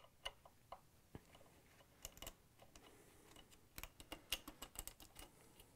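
Faint, irregular light clicks of a Phillips screwdriver turning out the screw that holds the trim band on a KitchenAid stand mixer, with a busier run of clicks about four seconds in.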